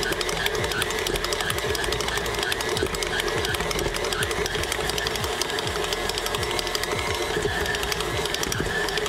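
KitchenAid stand mixer running steadily, its dough hook kneading a ball of bread dough in the steel bowl: a constant motor hum with rapid fine ticking.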